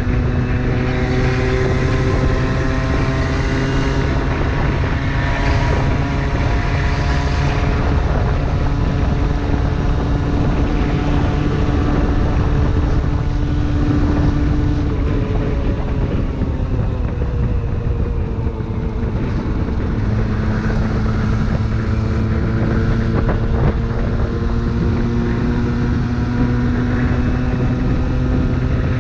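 Aprilia 50cc motorcycle engine running under way, a steady buzzing note with wind rushing over the microphone. About halfway through, the engine note drops, then climbs steadily again toward the end.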